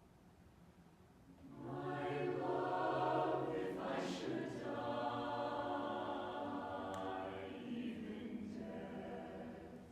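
Youth mixed barbershop chorus singing a cappella in close harmony. After a brief hush, the voices come in together about a second and a half in, sing a sustained chordal phrase, and fade away near the end.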